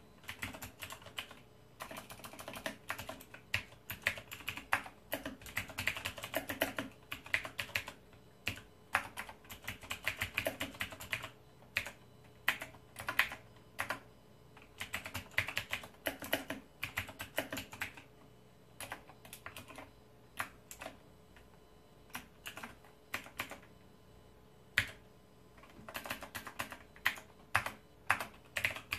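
Typing on a Razer BlackWidow Ultimate mechanical keyboard: rapid runs of key clicks in bursts of a few seconds, broken by short pauses.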